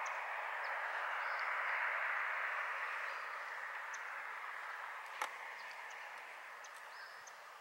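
Outdoor ambience: a steady hiss that fades slowly, with faint, short, high bird chirps and a single sharp click about five seconds in.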